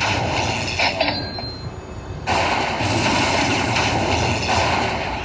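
Lightning Link slot machine sounds over casino floor noise, a dense noisy wash that thins out for about a second and then comes back louder, as the bonus win is tallied.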